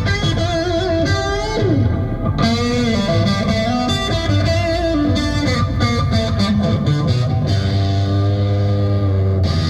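Instrumental passage of a recorded song, led by a wavering electric guitar melody over bass, played loud through a PA system for a product demo. About three-quarters of the way in, it settles into sustained chords over a steady low bass.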